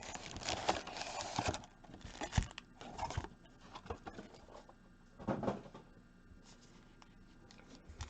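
Faint handling of a trading card box and its plastic wrap: crinkling and tearing, densest in the first second and a half, then scattered rustles and taps of cardboard, with one louder rustle about five seconds in.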